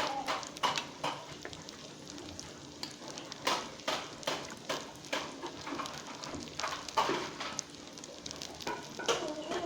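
Food sizzling and frying in a pan while being stirred, with irregular scrapes and knocks of the utensil against the pan.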